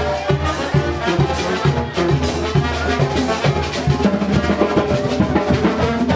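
Dance music with drums and brass, playing with a steady beat.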